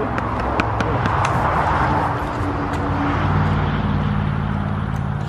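A motor running steadily with a low hum that shifts pitch slightly, with a few light clicks.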